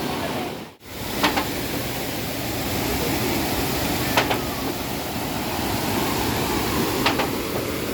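Steady rush of a waterfall and river, broken by a momentary dropout under a second in, with three brief sharp clicks over it.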